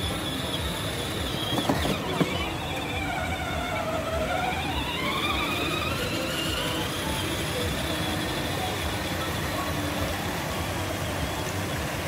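Electric motor whine from a child's battery-powered ride-on quad bike, dropping in pitch about three seconds in and rising again by about six seconds. It sits over a steady wash of fountain splashing and outdoor noise, with a couple of sharp knocks near two seconds in.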